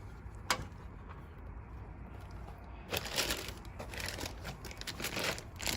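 Plastic model kit parts and their plastic packaging being handled: a single click about half a second in, then from about three seconds a run of crinkling rustles.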